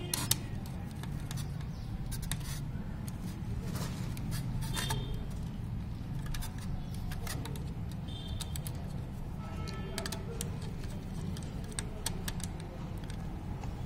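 Electrical wire and small hand tools being handled: scattered light clicks and snips as wire is cut, stripped and worked, over a steady low hum.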